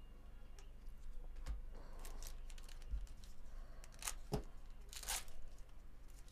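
Foil wrapper of a Bowman Chrome baseball card pack being torn open and crinkled by gloved hands, in a few short crackly rips about two, four and five seconds in.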